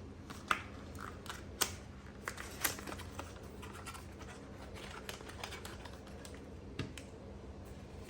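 Hands opening a small cardboard-and-plastic product box: a few sharp clicks and snaps of the packaging, loudest in the first three seconds, with light scratching and rustling between them.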